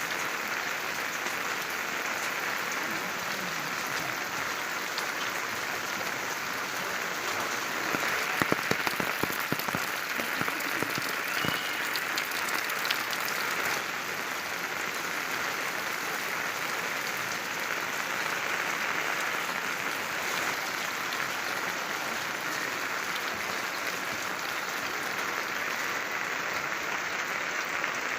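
Steady rain falling, a dense even hiss, with sharper close drips and taps for a few seconds starting about eight seconds in.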